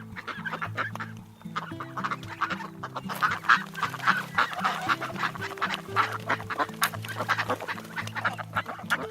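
A flock of ducks quacking and honking, many calls overlapping in a dense chatter, over steady background music.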